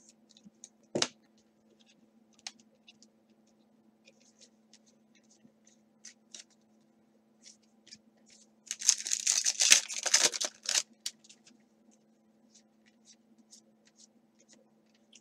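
A foil trading-card pack being torn open: a loud crinkling tear lasting about two seconds, roughly nine seconds in. Around it come a sharp click about a second in and faint ticks and rustles of cards being handled.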